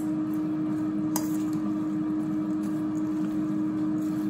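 Air fryer running with a steady hum, while pasta salad is tossed with a metal spoon in a stainless steel bowl: soft squishing, and a light clink of spoon on bowl about a second in.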